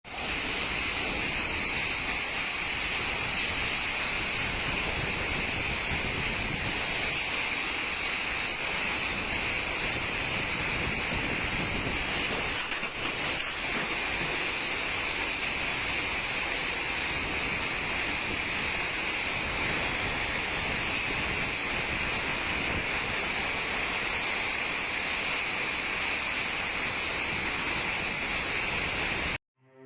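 Storm wind and heavy rain making a steady, dense rush, with wind buffeting the microphone. The sound cuts off abruptly near the end.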